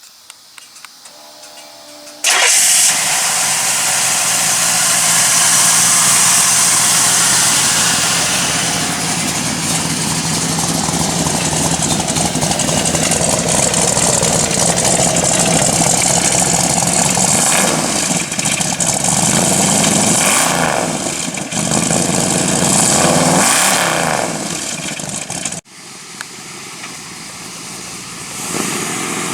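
Big-block 454 V8 with a Holley four-barrel carburetor and chambered exhaust, cranked and starting about two seconds in, then running loud. It is blipped up and down in pitch several times in the later part. The sound drops suddenly near the end, then builds again.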